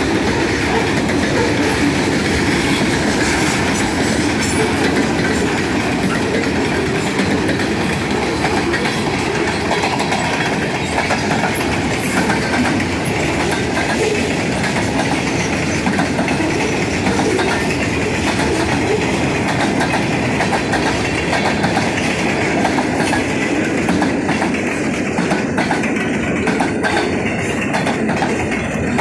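Freight cars of a passing freight train, covered hoppers and boxcars, rolling by steadily. The steel wheels click rhythmically over the rail joints above a continuous rolling noise.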